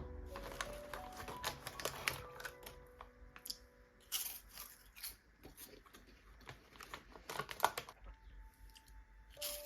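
A run of small clicks and rustles from objects being handled, with faint music tones underneath.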